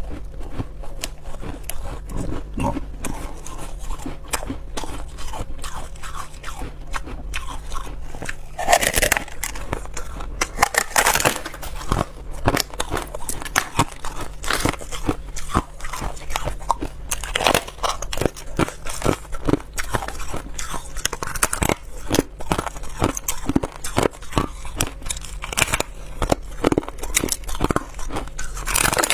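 A person biting and chewing frost-covered ice, close-miked: a dense, irregular run of crisp crunches and sharp cracks.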